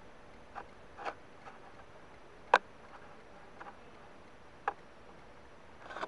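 Quiet room hiss with about seven light, irregularly spaced clicks, the sharpest about two and a half seconds in.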